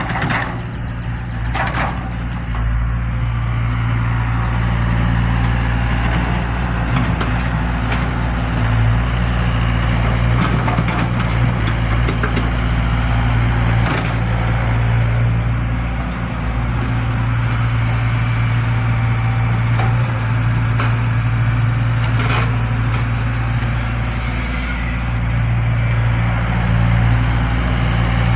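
Zoomlion excavator's heavy diesel engine running steadily, with a few sharp knocks and cracks now and then.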